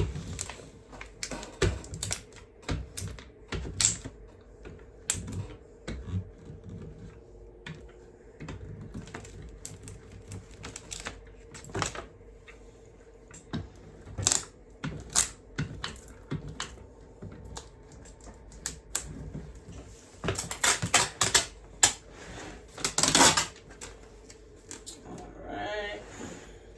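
Irregular clicks and taps from craft materials being handled on a tabletop, with a busier run of sharp clicks near the end, over a faint steady hum.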